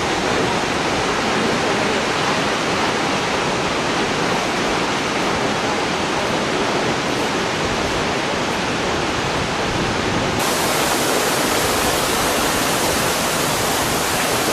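Waterfall rushing: a loud, steady roar of falling water. About ten seconds in it suddenly turns brighter and hissier.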